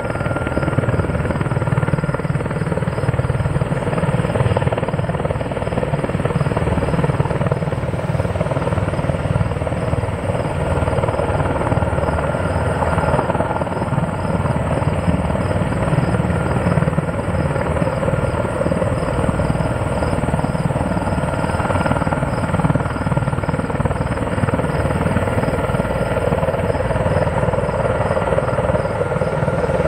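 Sikorsky S-64 Skycrane heavy-lift helicopter hovering under load: a steady, fast rotor beat with a high turbine whine over it, holding an even level.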